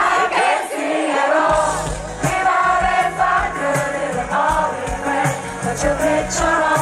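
Live hip-hop concert music through the arena PA: a sung melodic hook over a heavy bass beat, with the audience singing along. The bass drops out for about a second near the start, then comes back in.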